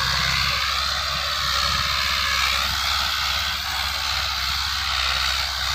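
Massey Ferguson 185 tractor's four-cylinder diesel engine running steadily while it drives a rotary tiller through the soil: an even low drone with a hiss over it.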